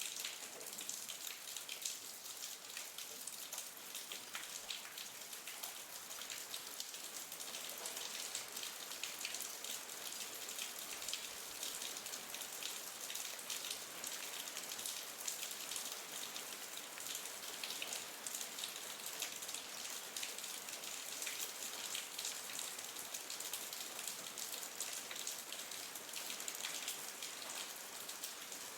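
Steady rain falling on a surface, a dense, even patter of many small drops.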